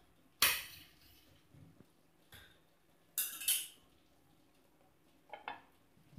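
Short scrapes and clinks of kitchen utensils at a nonstick dosa tawa, with two louder scrapes, one about half a second in and one about three seconds in, and a few fainter touches between.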